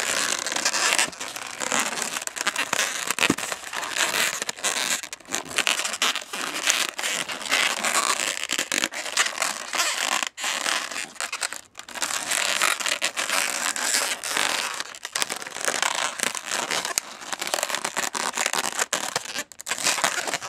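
Latex twisting balloons rubbing and scraping against each other and against fingers as a balloon nozzle and tail are stretched and tied into a knot: a continuous scratchy rustle broken by many small clicks.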